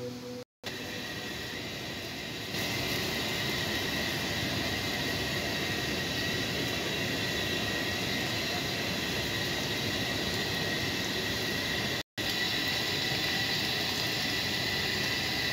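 Steady roar of a commercial gas wok burner and kitchen extraction, with a faint high whine, under a wok of boiling sauce. It steps up a little about two and a half seconds in and is broken by two brief dropouts, about half a second in and near twelve seconds.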